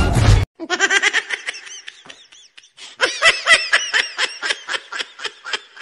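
High-pitched laughing in quick, repeated ha-ha pulses, coming in two bouts: the first fades out about two and a half seconds in, and a louder second one starts about a second later. Music cuts off abruptly just before the laughter begins.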